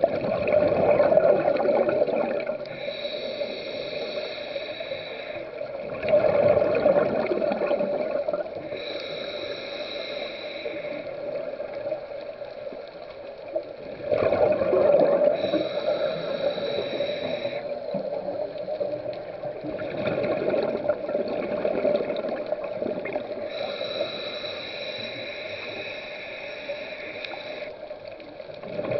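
Scuba diver breathing through a regulator underwater: about four noisy rushes of exhaled bubbles several seconds apart, with a higher, steadier hiss between them.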